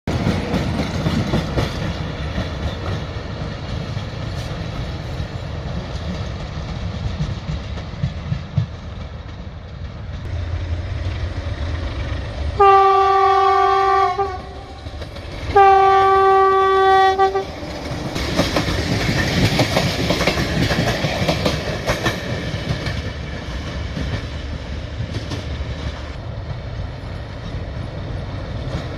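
Diesel locomotive train running with a low rumble, then two long blasts of the locomotive's horn, about 13 and 16 seconds in. After the horn comes the rumble and clatter of the train rolling along the rails.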